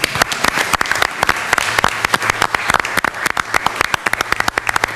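Applause from a small group of people, many hands clapping steadily.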